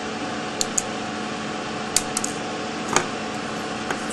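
Flush-cut side cutters snipping the wire leads of a voltage regulator soldered into a circuit board: a few short, sharp clicks, the loudest about two and three seconds in, over a steady low hum.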